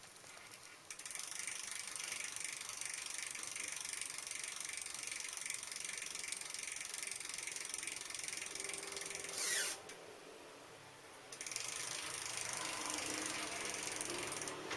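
Bicycle freewheel ratchet clicking steadily as the rear wheel turns, with a brief loud falling squeal about nine and a half seconds in, then a short lull before the clicking starts again.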